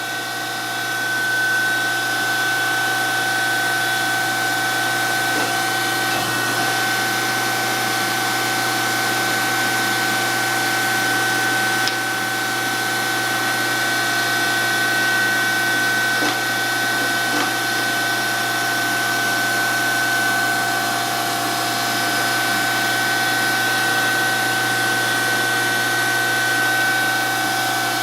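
DoAll 14-inch surface grinder running with a steady high whine from the spinning wheel and machine, a little louder from about a second in, with a few faint ticks.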